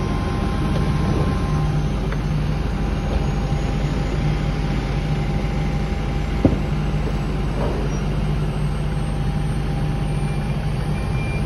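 Apron bus engine running steadily with a low rumble, and a single sharp click about six and a half seconds in.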